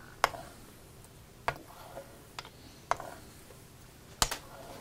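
A straight razor being honed on a Naniwa water stone. There are sharp clicks, about five of them at uneven spacing, as the blade is flipped over on its spine between strokes, and a faint scrape of the edge across the stone.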